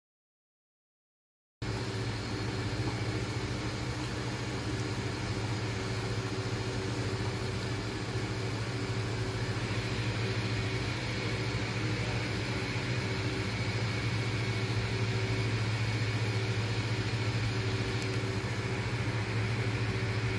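About a second and a half of silence, then a steady low mechanical hum with a fan-like hiss from a running kitchen appliance, unchanging throughout.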